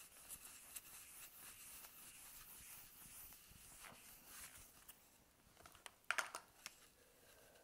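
Whiteboard eraser wiping across a whiteboard: faint, steady rubbing strokes. About six seconds in, a few sharp clicks and knocks as things are set down on the board's tray.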